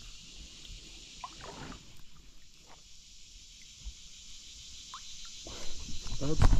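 Handling noise on a plastic sit-on-top fishing kayak: a few light knocks and rustles of the paddle and rod against the hull over a steady high hiss, then a much louder low rumbling stretch near the end.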